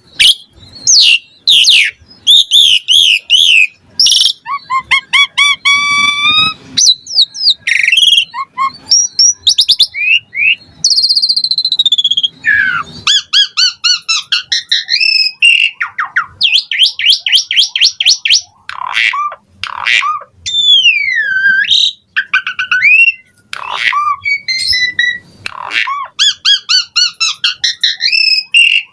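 Asian pied starling singing loudly and without pause, a fast, varied string of whistles, trills, rising and falling slurred notes and harsh chattering calls, with mimicked phrases of other birds woven in.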